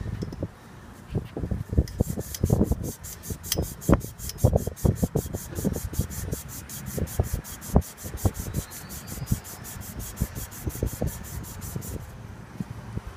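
Irregular rubbing, scraping and knocking of hand work on a rooftop air-conditioning unit, with a fast, even high ticking through most of the middle.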